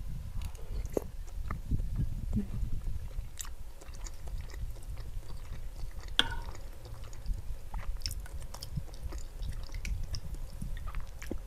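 Close-miked chewing of soft lontong rice cake in coconut vegetable curry, with wet mouth sounds. A few light clicks of cutlery on the glass bowl, the sharpest about six seconds in.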